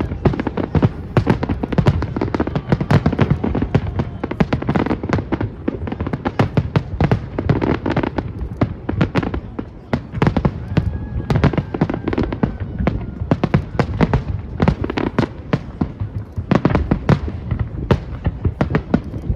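Fireworks display going off without a pause: many overlapping bangs and crackling reports over a continuous low rumble.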